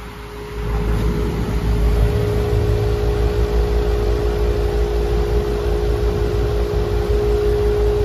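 York R22 central air conditioner condenser unit running: a steady motor hum over the low rush of its fan, which grows louder about half a second in. The system is low on refrigerant.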